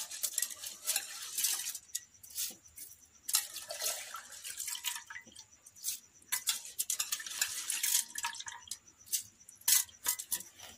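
Wet rice being ground in a hand-turned stone grinder: the stone pestle scraping and crunching against the stone basin in uneven strokes, with wet clicks.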